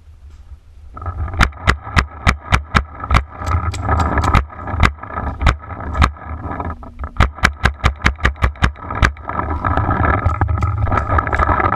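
Paintball markers firing sharp pops in rapid runs of several shots a second. The shooting comes in two main volleys, from about a second in to about four seconds and again from about seven to nine seconds, with a few single shots between them, over a steady low rumble.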